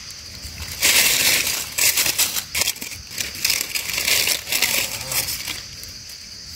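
Dry leaf litter crunching and rustling in irregular surges, with small crackles, from about a second in until near five seconds.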